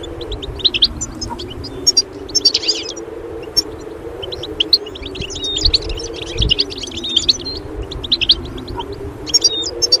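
Small songbirds chirping and twittering in quick, high bursts, densest about two and a half seconds in and again from about five to seven and a half seconds. A low, slowly wavering hum runs underneath.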